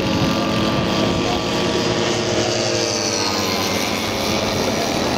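Piston engine of a large radio-controlled scale model aircraft running at low throttle as the model taxis on grass. The engine note drops slightly about two seconds in.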